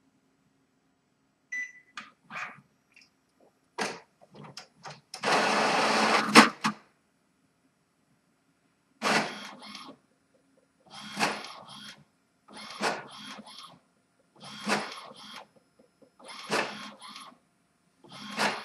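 Epson WorkForce WF-3540 inkjet printer starting a test print: a few clicks, a loud rush of mechanism and paper-feed noise about five seconds in, then the print head carriage passing back and forth about once every two seconds.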